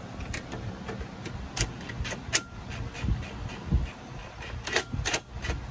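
Scattered metallic clicks and clinks of a socket extension and the aluminium AC line fitting being handled at a car's AC condenser, a few sharp taps with the loudest near the end.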